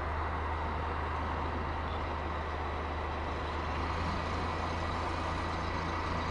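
Several coupled locomotives, led by a grey MRCE electric locomotive, rolling slowly past close by: a steady low drone with a faint constant high tone above it.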